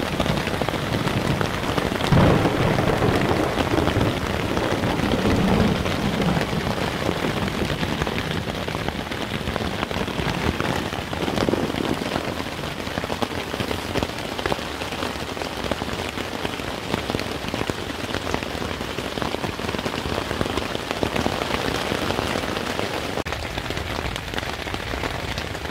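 Heavy rain drumming steadily on a Naturehike Opalus 2 tent's nylon fly, heard from inside the tent, a little louder in the first few seconds.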